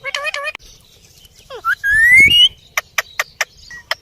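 Pet parrot calling: a short wavering squawk at the start and a loud rising whistled call about two seconds in, then a quick run of about seven sharp clicks.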